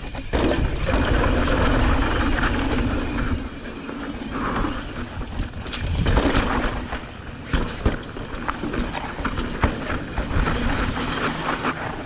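Mountain bike descending a dry, rocky dirt trail: tyres crunching over dirt and rock and the bike rattling and clattering, with sharp knocks as it hits bumps. A low rumble of wind on the camera microphone runs underneath.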